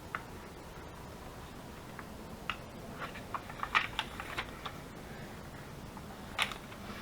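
Paper being folded and creased by hand: a scatter of small crisp clicks and crinkles, busiest around the middle, with one sharper tap near the end.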